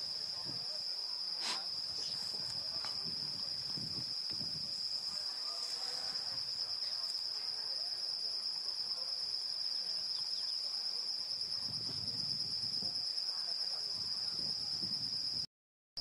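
Steady, high-pitched insect trilling, one unbroken tone, with a single faint tick about a second and a half in. The sound drops out abruptly for a moment just before the end.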